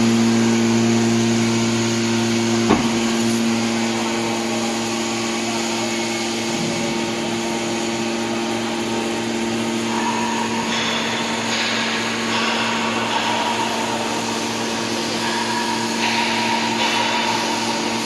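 Hydraulic power unit of a Y81Q-125 scrap metal baler running with a steady hum while the main cylinder retracts and the cover door lifts. There is a single sharp knock about three seconds in, and a higher-pitched whine joins at about ten seconds.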